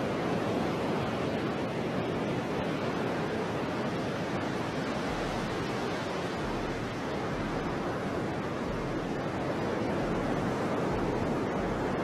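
Steady rush of ocean surf, waves breaking and whitewater churning.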